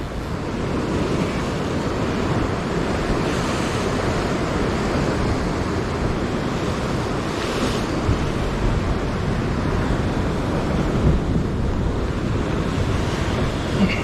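Rough surf surging and breaking against the rocks in a steady wash, with wind buffeting the microphone.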